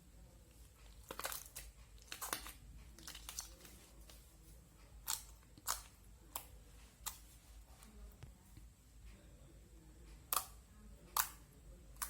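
Slime being pressed and stretched by hand, giving sharp pops and crackles. A few clustered crackles come in the first few seconds, then single pops every second or so, with the loudest two near the end.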